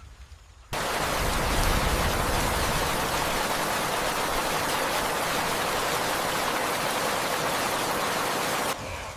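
Heavy downpour of rain: a dense, even hiss that cuts in abruptly about a second in and cuts off just as abruptly near the end, after the dying tail of a low rumble.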